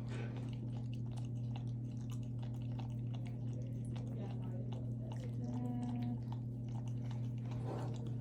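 Puppy eating his flavoured dewormer: a run of quick small chewing clicks over a steady low hum, with a short held tone about five and a half seconds in.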